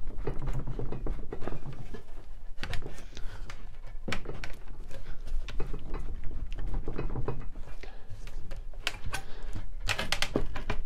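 Steel putty knife being worked and pried into a glued wooden chair joint, where the leg is stuck to the seat with polyurethane construction adhesive: irregular scraping and sharp clicks of blade on wood, with the wooden chair knocking and creaking as it is pried. A quick run of louder clicks comes near the end.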